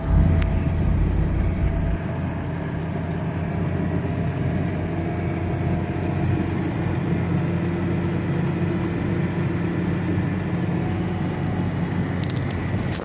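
Car engine hum and tyre noise heard inside the cabin while driving at a steady speed, with a heavier low rumble for the first two seconds.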